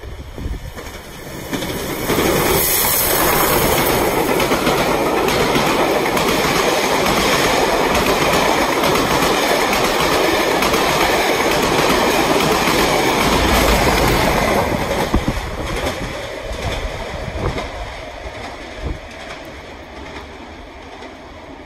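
Steam locomotive Tangmere, a Bulleid Battle of Britain class Pacific, passing at speed through a station with its train of coaches. The noise builds sharply about two seconds in and stays loud while the coaches rush by, then fades over the last several seconds as the train draws away.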